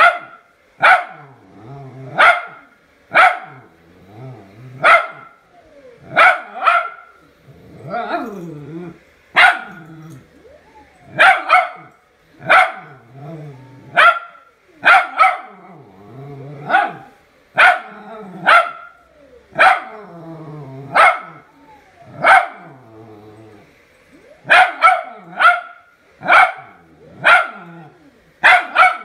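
Small wiry-haired terrier barking sharply and repeatedly at a moving-head light, roughly one bark a second with a few short gaps, with lower growling between the barks.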